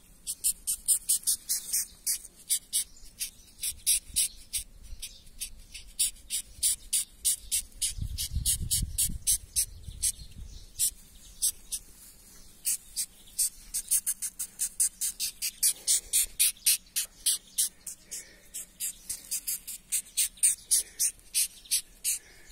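Marbled chafer beetle (Polyphylla fullo) stridulating, a rapid run of sharp, very high-pitched squeaks at about four a second in bursts with brief pauses: the chafer's squeaking when it is touched, made by rubbing its body against its wing cases. A low rumble of handling comes about 8 seconds in.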